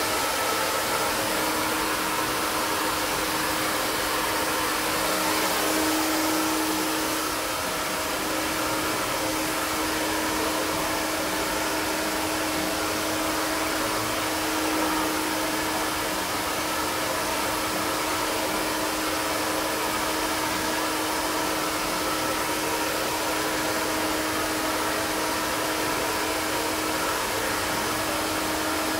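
Prife iTeraCare terahertz health blower, a handheld hair-dryer-like device, running steadily: a rush of blown air with a steady hum from its fan motor.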